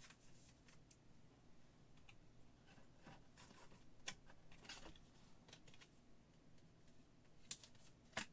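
Near silence with faint clicks and brushing sounds of trading cards being handled, a few small ticks scattered through, the clearest near the end.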